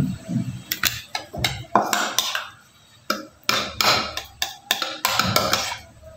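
Metal offset spatula scraping and clicking against a glass bowl while scooping thick chocolate ganache: a run of short scrapes and knocks.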